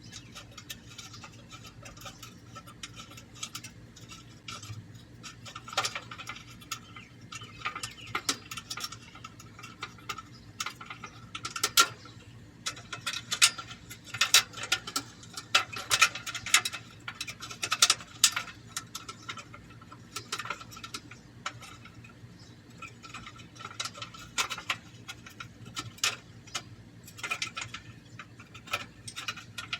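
Small irregular metal clicks and taps as bolts are started by hand into the sheet-metal heat shields of a rear catalytic converter, thickest through the middle.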